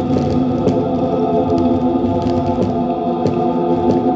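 Music: a sustained chord of many steady droning tones, organ- or choir-like, with a few faint clicks.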